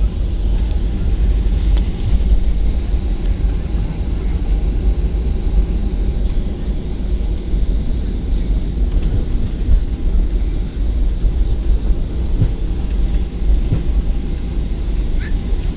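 Steady low cabin rumble of a Boeing 737-400 moving on the ground after landing: its CFM56 engines and rolling wheels heard from inside the passenger cabin.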